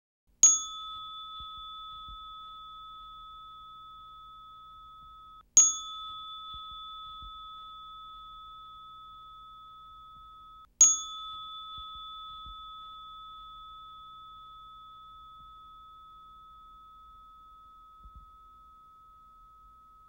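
Now & Zen Zen Alarm Clock's metal chime bar struck three times, about five seconds apart, each strike ringing with a low and a high tone and slowly fading, the last ringing out long. These are its progressive wake-up chimes, coming at a steady spacing well into the alarm sequence.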